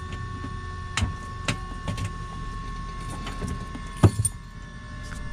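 Light aircraft cockpit with the engine shut down and the propeller stopped: a steady high electrical whine over a low rumble, with a few sharp clicks, the loudest a close pair about four seconds in.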